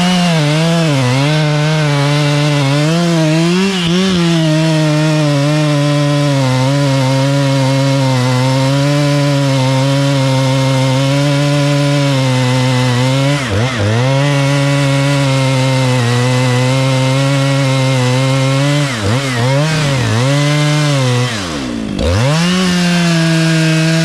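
Chainsaw held near full throttle while cutting a tree, the engine note wavering under load. The throttle is let off briefly and snapped back up about halfway through, twice more a little later, and once for a longer drop near the end.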